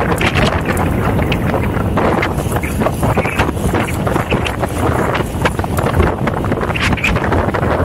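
Wind buffeting the microphone: a loud, continuous low rumble with irregular crackles and clicks throughout.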